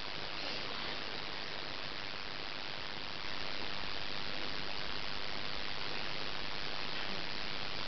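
Steady hiss of recording noise in a quiet room, a little louder from about three seconds in.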